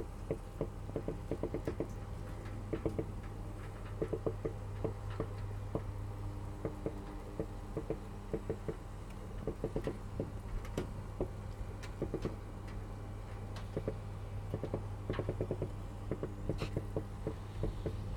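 Roasting pig crackling and popping: irregular clusters of small clicks and ticks over a steady low hum.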